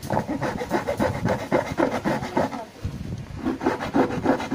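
A hand-held hacksaw blade sawing through the wall of a plastic water jug in quick back-and-forth strokes. The strokes pause briefly about three seconds in, then start again.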